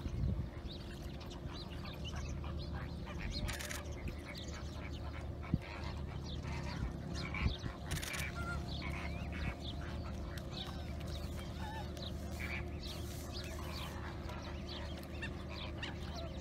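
Birds calling, with many short chirps throughout, over a steady low hum.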